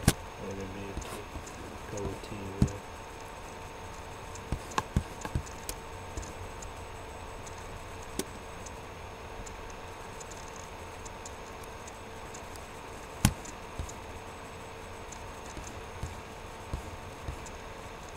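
Scattered sharp clicks and taps, several close together about five seconds in and a louder single one past the middle, over a steady electrical hum.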